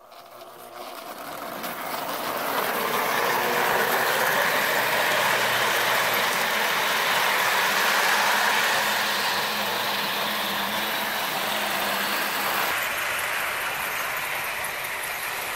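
Toy electric trains running on their track: a steady mechanical running noise that fades in over the first couple of seconds and changes character about 13 seconds in.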